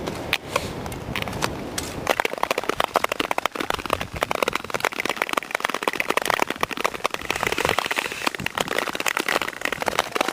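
Black lake ice crackling and pinging with a dense, continuous run of sharp clicks starting about two seconds in, after a short stretch of skating with wind on the microphone.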